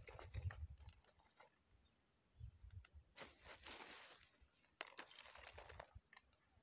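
Near silence, with faint scattered rustling and a few light clicks.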